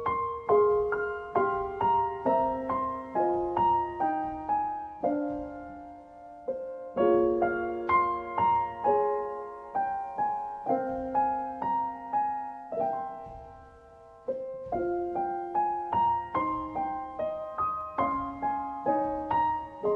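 Soft solo piano music: single notes and chords struck at an even, gentle pace, each one fading away, in phrases that pause briefly and start again.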